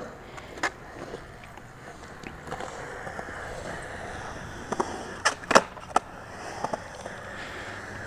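Skateboard wheels rolling on concrete, with a single sharp clack about half a second in and a cluster of sharp board clacks and knocks about five to six seconds in as the skater pops and lands a trick.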